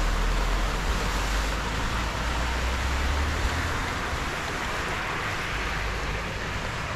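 Steady hiss of rain and running floodwater, with wind rumbling on the microphone through the first half.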